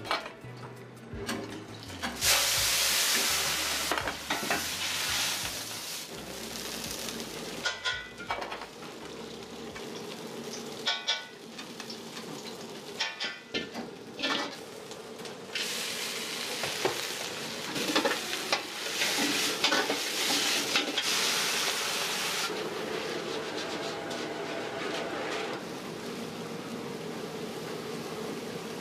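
Wok frying over a high gas flame: loud bursts of sizzling as ingredients hit the hot wok, with a metal ladle clanking against the wok and the seasoning pots in between. A steady burner roar carries on underneath.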